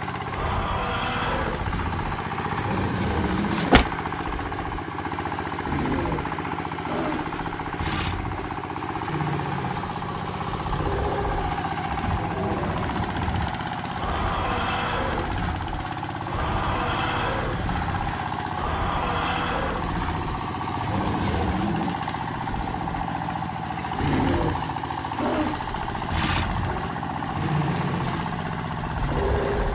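Small electric gear motor of a homemade toy tractor running steadily with a constant whine, broken by a few sharp clicks.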